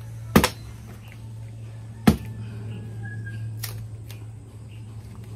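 Machete blows chopping wood: a sharp double chop about half a second in, another hard chop about two seconds in, and a lighter knock about three and a half seconds in. A steady low hum runs underneath.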